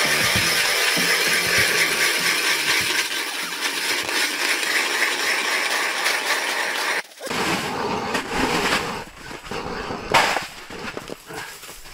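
A dense, steady grinding noise that cuts off abruptly about seven seconds in, followed by a shovel scraping loose ice chips and slush across an ice floor, with clinks and a sharp knock.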